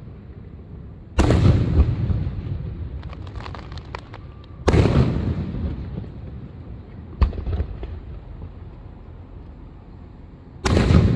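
Aerial fireworks exploding: three heavy booms, each trailing off in a long rumble. A scatter of small crackling pops follows the first boom, and a single sharp crack falls between the second and third.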